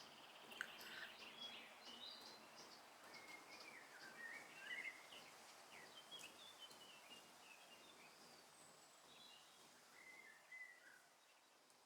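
Faint small-bird chirps and twittering over a soft background hiss, busiest in the first half and fading out near the end.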